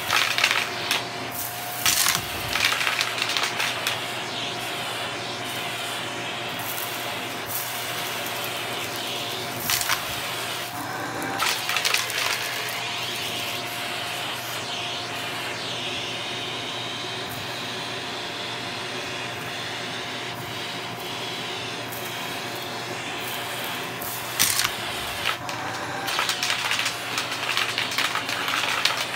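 Shark vacuum cleaner running on carpet: a steady motor whine over a low hum, dipping briefly in pitch twice. Clusters of clicks and crackles come near the start, about a third of the way in, and again near the end.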